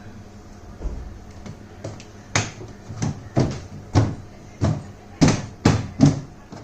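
An irregular series of about eight sharp knocks and clunks, getting louder toward the end, over a faint low hum.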